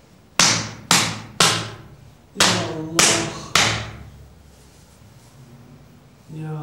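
Six sharp open-hand slaps struck by a Sufi folk healer on a kneeling patient as part of a healing treatment, in two quick sets of three about half a second apart, each ringing briefly.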